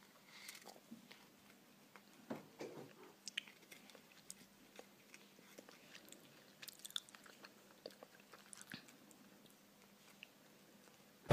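A cat biting and chewing a treat held to its mouth: faint, irregular crunches and mouth clicks, a little louder about two to three seconds in.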